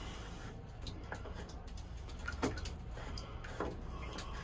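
A few light clicks and scrapes as a clear plastic cap is turned by hand on the threads of a Groco metal raw-water strainer, the thread not yet caught. A steady low hum runs underneath.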